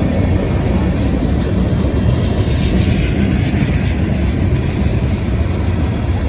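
Freight train rolling past: a loud, steady rumble of steel wheels on the rails.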